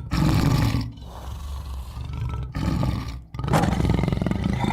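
Tiger roaring: a loud roar, quieter growling from about one to three seconds in, then another loud roar near the end.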